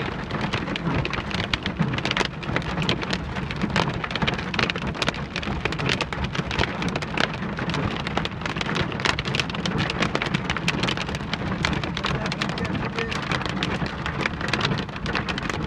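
Heavy rain pouring down, a dense crackling patter of drops striking surfaces, over a steady low rumble.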